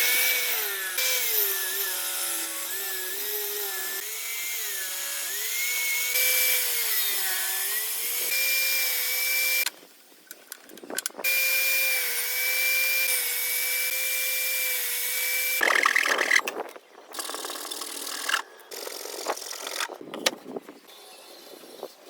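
An electric power tool cutting wood, its motor pitch dipping and recovering as it bites into the wood. It stops about ten seconds in, runs again briefly, then gives way to a series of knocks and clatter from the work being handled.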